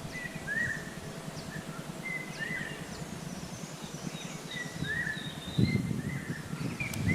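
A bird calling over and over, each call a short level whistle running into a hooked, down-curving note, with fainter higher chirps from other birds. A low muffled bump comes late on.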